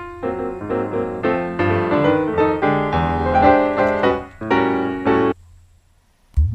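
Background piano music that stops about five seconds in. After a short pause, a different piece starts just before the end with a low percussive hit.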